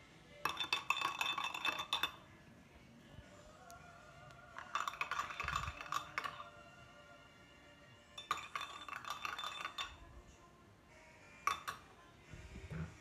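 Metal spoon stirring hand soap and sugar in a small ceramic sugar bowl, clinking rapidly against its sides in three bursts of about a second and a half each, then one single clink near the end.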